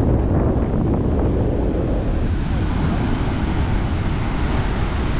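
Sea wind buffeting the microphone as a steady, heavy low rumble, with ocean surf washing behind it.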